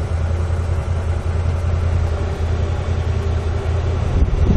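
ComeUp Cub 4S 12-volt electric winch running steadily under load, reeling in its rope to pull the UTV out of mud; a low, even hum.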